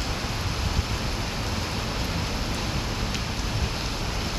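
Steady rain falling on trees and pavement, an even hiss with a low rumble underneath.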